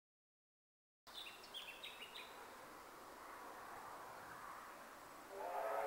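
Birds chirping over steady outdoor background noise. Near the end, the steam whistle of Victorian Railways J class steam locomotive J515 begins a steady, multi-toned blast.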